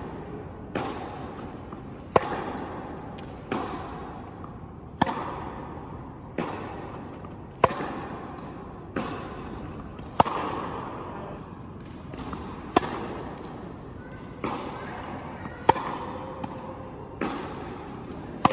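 Tennis rally: sharp racket strikes on the ball, the loudest about every two and a half seconds, with quieter ball bounces and the far player's hits in between. Each hit rings on in the echo of a large indoor tennis hall.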